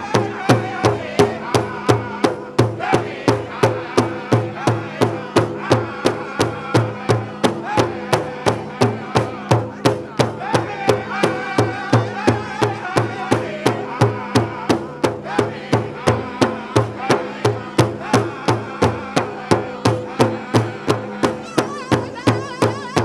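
Powwow drum group beating a big drum in a steady, even beat of about three strikes a second while singers sing a prairie chicken dance song over it.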